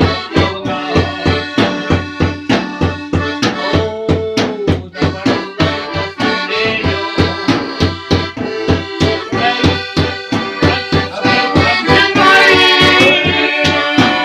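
Accordion playing a lively folk tune over a steady beat of sharp knocks, struck on an empty plastic canister used as a drum.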